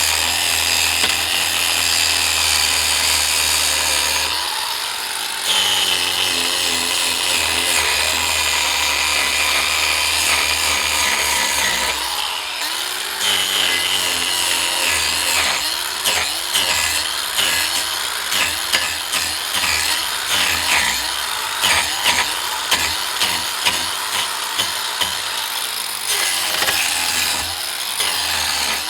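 Cordless angle grinder with a wood carving disc cutting into a log to strip the bark. The motor runs as a steady high whine at first. In the second half its pitch repeatedly dips and recovers as the disc bites in short passes.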